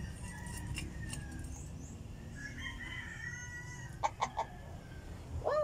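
A rooster crows, one drawn-out call in the middle, then a few short chicken clucks about four seconds in, over a low steady rumble.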